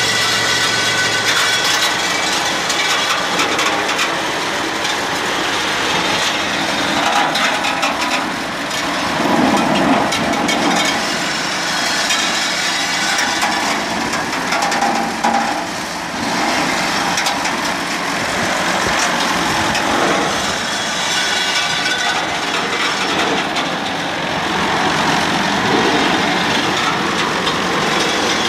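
SP 07 rosehip harvesting machine running as it picks, its picking and conveyor mechanism rattling steadily with crackling from branches and twigs passing through, over the engine that drives it.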